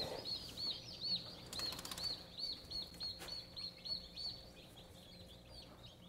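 Newly hatched chicks peeping: a fast run of short, high, arched peeps, several a second, thinning out over the last couple of seconds.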